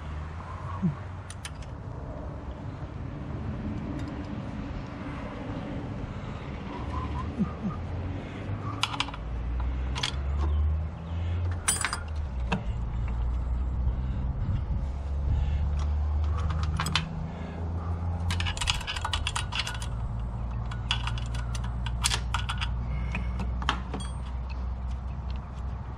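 Scattered, irregular metallic clicks and clinks of hand tools and fingers working at the starter wiring of a riding mower's engine, busier in the second half, over a low background rumble.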